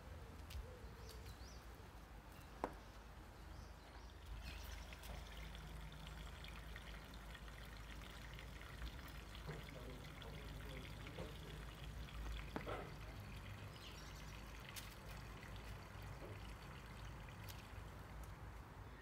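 Faint, steady outdoor background noise with a low hum, broken by a couple of soft clicks.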